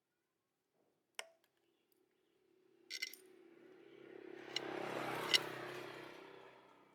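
Sharp metallic clicks, then a mechanical hum with a steady low tone that swells for a few seconds and fades, with two more sharp clicks at its loudest.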